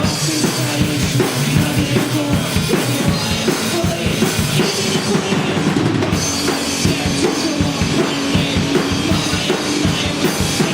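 Live rock band playing, with a drum kit driving a steady beat of bass drum and snare under bass and guitar.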